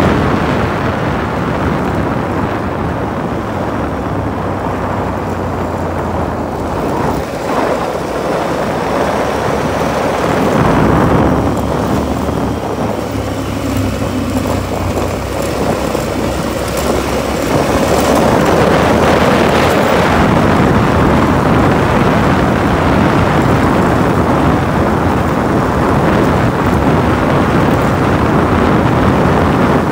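Off-road vehicle running at speed on a gravel trail: the engine's drone mixed with tyre noise on gravel and heavy wind buffeting on the microphone. It grows louder about ten seconds in and again a little later.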